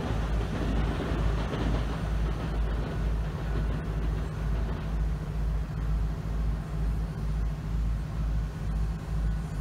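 Passing train noise fading over the first two seconds as the train moves away, leaving a steady low rumble that swells and dips a few times a second.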